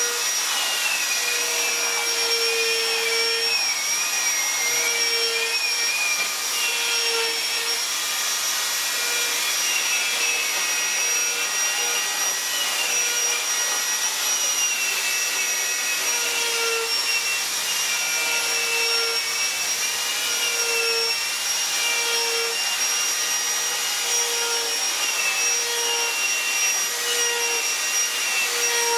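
Handheld rotary tool with a cone-shaped carving burr running at high speed against wood: a steady high whine over a hiss, with a second, lower tone that wavers up and down throughout. A short low hum comes and goes, about once a second in the second half.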